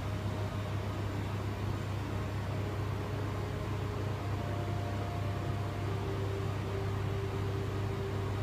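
Steady low machine hum with a background hiss. Faint thin whining tones come and go over it, shifting about 4 seconds in and again about 6 seconds in.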